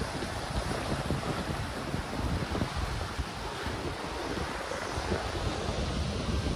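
Wind gusting across the microphone with low, uneven buffeting, over a steady wash of surf on the beach.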